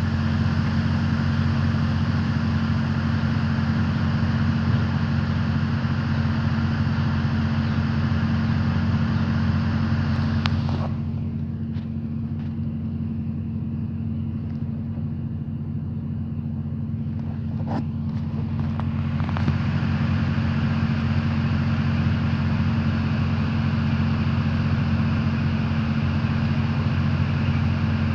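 Idling delivery truck: a steady, loud low engine drone with a hiss above it. The hiss is dulled for several seconds in the middle while the drone carries on unchanged.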